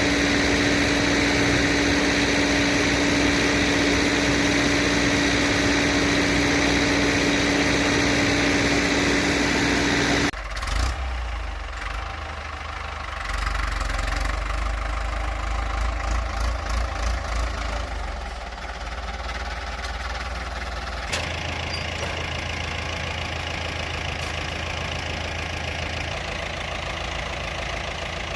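Farm tractor engine running. A steady high whine over the engine cuts off abruptly about ten seconds in, leaving a lower, throbbing run, and the sound changes abruptly again about twenty seconds in.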